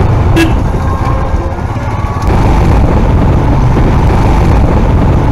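Motorcycle riding along at speed: the engine running under a heavy, loud rumble of wind on the microphone.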